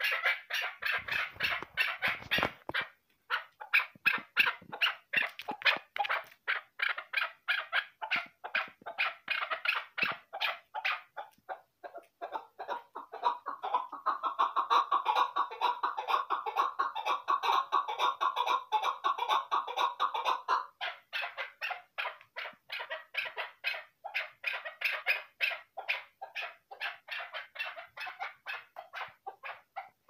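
Chukar partridge calling: a long series of short, rapidly repeated notes, with a denser, fuller stretch in the middle.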